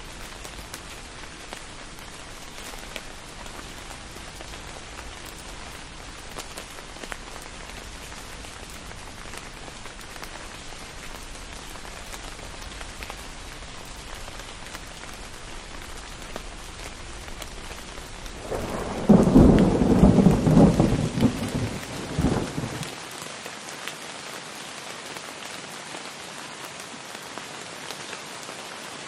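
Steady heavy rain falling and splashing on hard surfaces. About two-thirds of the way through, a clap of thunder breaks and rumbles in several cracks for about four seconds, the loudest sound here.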